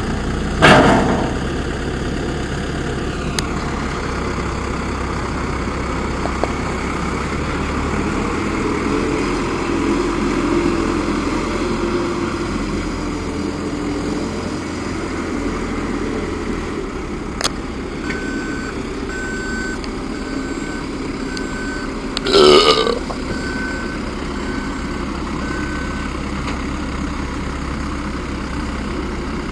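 Diesel engine of a Komatsu WB146 backhoe loader running steadily while digging, with a loud clank about half a second in and another about 22 seconds in. A sharp click comes about 17 seconds in, and a string of evenly spaced high beeps sounds for several seconds in the second half.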